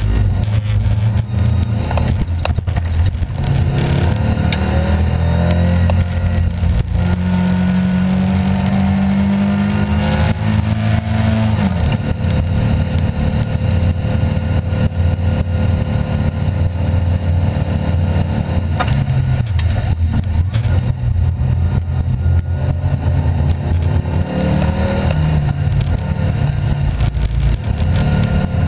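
Rally car engine under hard throttle heard from inside the cabin, its revs climbing, dropping sharply about twelve seconds in, and climbing again, over steady road and tyre noise.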